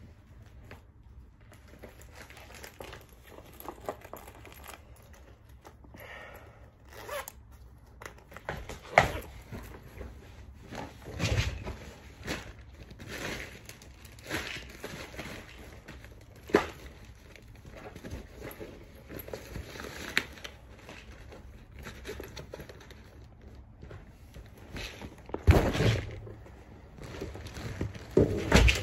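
Someone handling things at close range: rustling and crinkling broken by scattered knocks and bumps, the loudest a cluster near the end.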